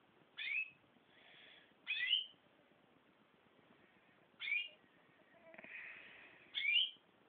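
Small bird chirping: four short chirps spaced about two seconds apart, each sweeping down in pitch, with faint rustling between them.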